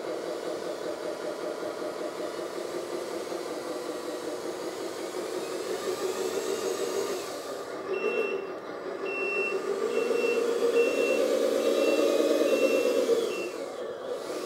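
Radio-controlled LESU 8x8 crane truck driving, its engine-like running sound swelling and rising in pitch about two thirds of the way in. A reverse warning beeper beeps evenly, about one and a half beeps a second, from about halfway through until near the end.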